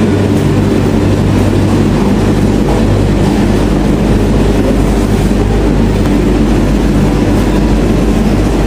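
A bank of stacked Speed Queen commercial tumble dryers running, a loud steady mechanical hum and rumble of motors and turning drums that doesn't let up.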